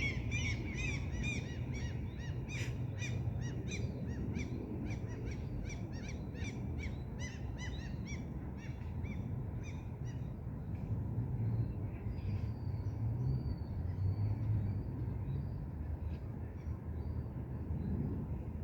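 Small birds chirping in quick repeated notes, several a second, thinning out about halfway through into a faint high thin whistle. Under them runs a steady low rumble.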